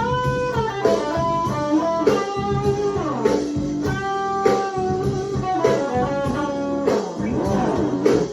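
Electric guitar improvising a blues lead: single-note melodic lines with bent notes sliding in pitch, over a steady low backing.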